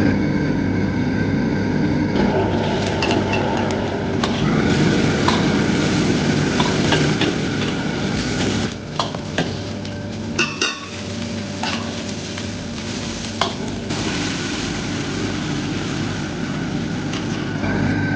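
Steel ladle stirring and scraping in a wok, with food sizzling, over the steady rush of a commercial gas wok burner. A few sharp clanks of the ladle on the wok come around the middle.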